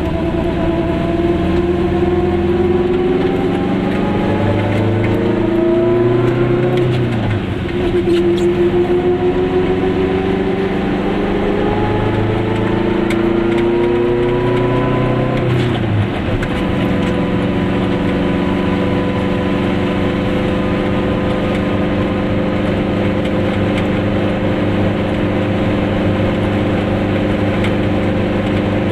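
Goggomobil's small air-cooled two-stroke twin-cylinder engine heard from inside the cabin, pulling away and accelerating through the gears. The pitch climbs, drops at a gear change about seven seconds in, climbs again, drops at a second change about sixteen seconds in, then holds steady at cruising speed.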